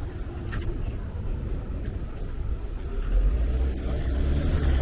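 City street ambience with a low rumble that grows louder about three seconds in, and a brief click about half a second in.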